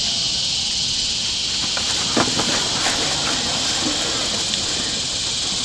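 Steady high-pitched insect chorus, a continuous shrill drone, with a few short sounds of people shuffling about two seconds in as a group sits down on a hard court.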